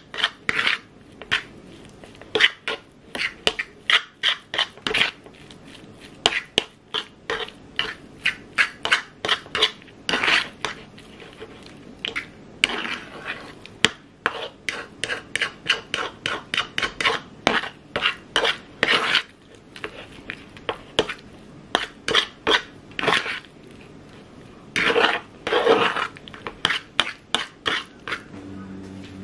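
Metal fork clicking and scraping against a plastic bowl in quick runs of strokes, a few per second with short pauses, as it mashes boiled eggs.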